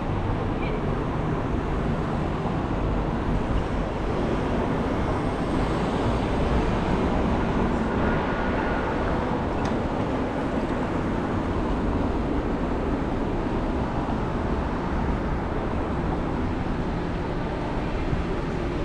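Steady city street ambience, mostly road traffic running along a busy avenue, with one faint click about halfway through.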